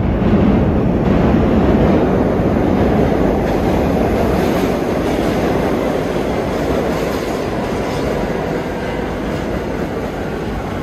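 Downtown 1 subway train of R62A cars running express through the station without stopping: a steady rumble of wheels on rails with clickety-clack. It is loudest in the first couple of seconds and eases slightly toward the end.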